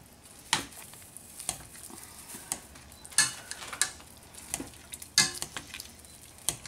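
Wire potato masher pressing boiled potatoes in a metal pot, knocking against the pot in irregular strokes about once a second.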